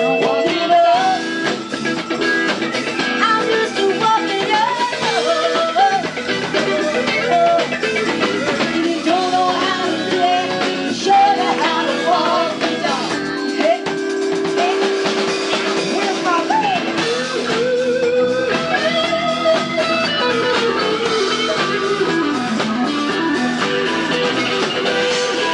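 Live rhythm-and-blues band playing: a woman's lead vocal and electric guitar over bass and a drum kit.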